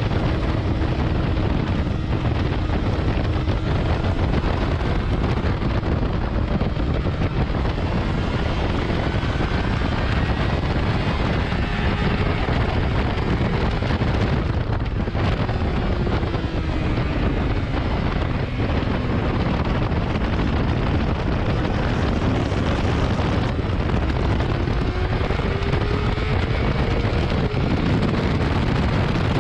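Heavy wind rushing over the camera microphone on a 2019 Yamaha R6 sport bike at track speed, with the inline-four engine's note faint underneath. The engine pitch drops around the middle and climbs steadily near the end as the bike accelerates.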